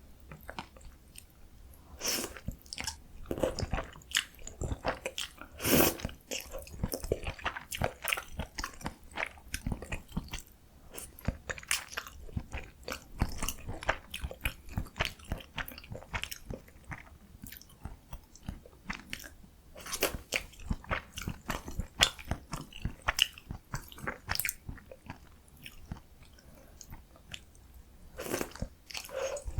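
Close-miked eating sounds of someone chewing a mouthful of bibim-myeon, Korean spicy mixed cold noodles, with dense wet clicks and smacks. Chewing starts about two seconds in and eases off briefly near the end before picking up again.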